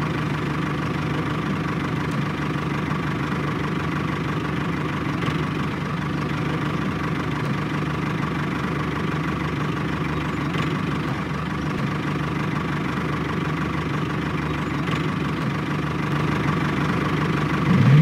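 Tractor engine running steadily at idle, with no change in speed; it swells briefly near the end.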